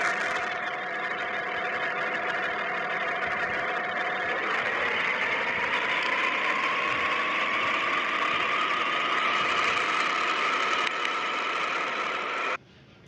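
An engine running steadily. From about a third of the way in, a whine in its sound slowly rises in pitch. It cuts off abruptly near the end.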